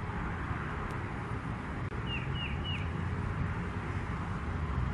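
Outdoor ambience: a steady low rumble and hiss, with a small bird giving three quick chirps about two seconds in.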